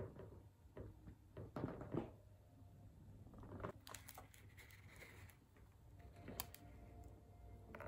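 Faint rustling and tapping of stiff card pages and pop-up flaps as a picture book is handled and turned, in scattered short bursts.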